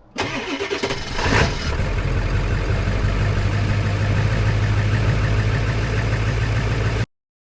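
A vehicle engine is cranked, catches with a brief rev about a second in, then idles steadily. The sound ends abruptly near the end.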